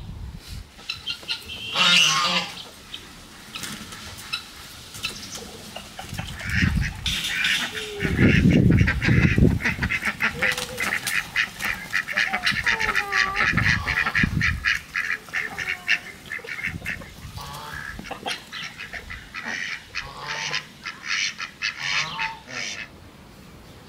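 A flock of ducks and chickens quacking and clucking in a busy, rapid chatter as they crowd round food scraps tipped out for them. There is a sharp knock about two seconds in.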